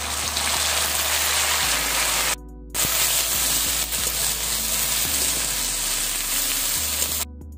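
Ground ginger, cumin and chilli paste sizzling loudly in hot oil in a kadai as it is stirred with a spatula. The sizzle breaks off briefly twice, about two and a half seconds in and near the end.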